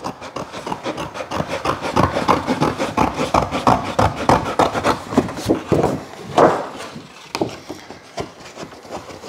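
Scissors cutting along a marked line through a stiff sheet of pressed paper: a run of short snips with the paper rustling and flexing in the hands.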